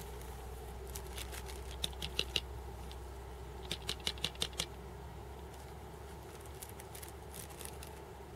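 Small items being handled by hand: two short runs of sharp clicks and crinkles, a couple of seconds apart, over a steady low hum.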